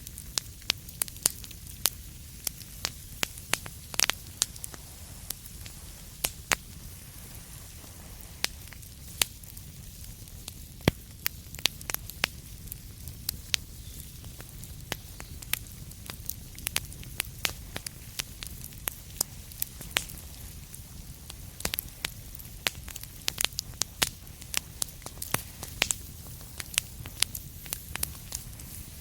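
Wood fire crackling in a fireplace: irregular sharp pops and snaps, several a second, over a steady low rumble and hiss.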